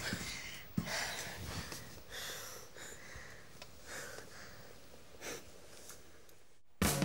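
Soft breathing and sniffs close to the microphone, with a light knock about a second in.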